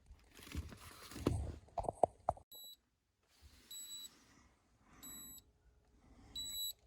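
Short, high electronic beeps repeating four times, a little over a second apart, after a couple of seconds of rustling and handling noise.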